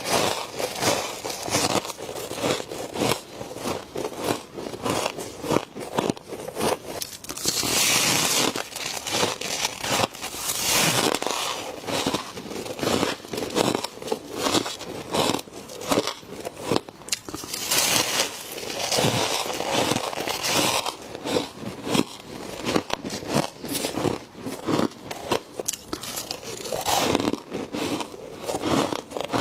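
Close-up crunching of frost being bitten and chewed: a steady run of sharp crackling crunches, with a few longer, grinding crunches.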